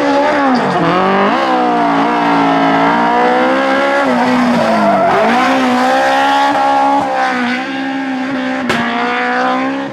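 Rally car engine running hard at high revs, its pitch dropping and climbing again several times as the car lifts off and accelerates through the stage. There is a single sharp crack near the end.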